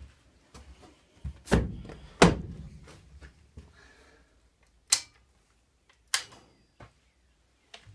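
A few separate clunks and clicks from switches and fittings being worked in an EMD GP10 locomotive's cab, with the diesel engine not yet started. There are two heavy thunks about one and a half and two seconds in, then sharper clicks near five and six seconds.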